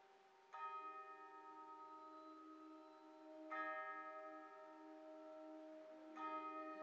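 Soft opening of a concert band piece: tuned percussion strikes three ringing bell-like notes, about three seconds apart, each left to ring over a held low note.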